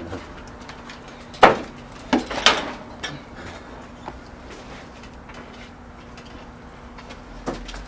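Knocks and clanks of a metal barred gate as a person climbs over it: a sharp bang about a second and a half in, a few more over the next second and a half, and one more near the end.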